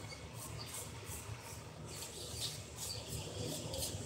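Faint, irregular rubbing and scratching over a low steady hum: handling noise close to the microphone.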